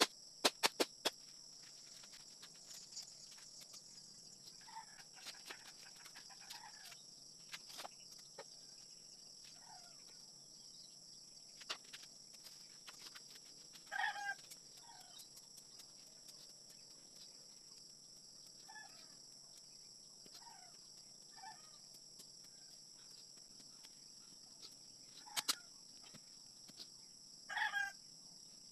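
Chickens clucking now and then, with louder calls about halfway through and near the end, over a steady high-pitched hum. A few sharp chops of a bolo blade into bamboo come in the first second.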